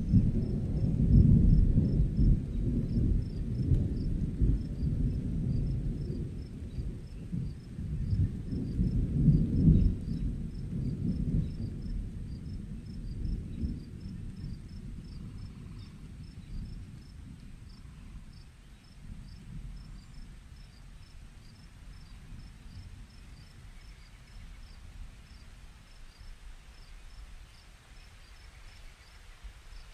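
Low rolling thunder, loudest in the first ten seconds and slowly dying away, with crickets chirping in short, evenly repeated chirps throughout.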